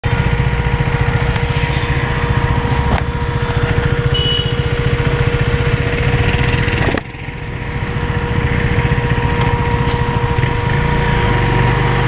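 KTM 390 motorcycle's single-cylinder engine running under way, heard close up. About seven seconds in the sound dips sharply, then builds back up again.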